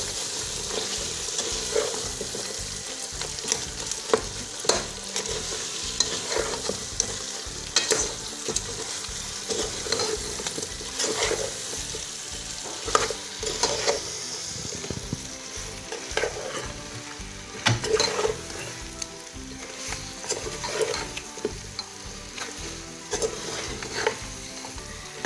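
A spoon stirring pepper chicken with onions and fresh pepper in a pot, scraping and knocking against the pot about every one to two seconds, over a steady hiss from the cooking sauce.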